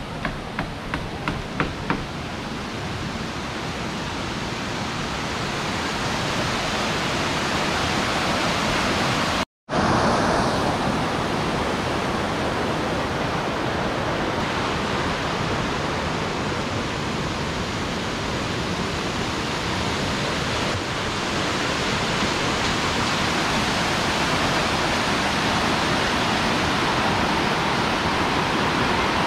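Steady rush of a rocky river running over small cascades, an even hiss. There are a few light clicks in the first two seconds, and the sound drops out for an instant about ten seconds in.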